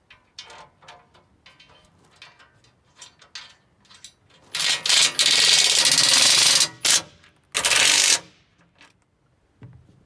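Cordless drill running in two spurts, about two seconds and then a short half second, driving screws into the metal cover of a sawmill's hydraulic compartment. Before it come a few seconds of light clicks and clatter as the cover and screws are handled.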